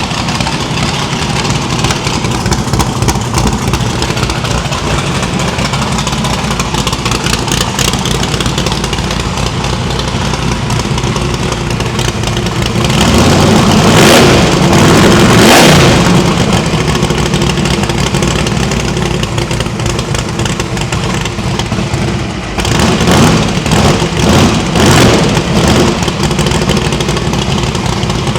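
Small-block Chevy V8 idling on all eight cylinders after its misfire was traced to plug wires and rotor indexing. It is revved once, held up for a couple of seconds about halfway through, and blipped several times in quick succession near the end.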